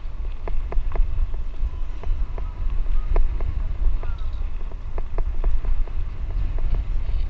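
Bicycle rattling over a rough dirt road: irregular sharp clicks and knocks, a few a second, over a steady low rumble of wind on the microphone.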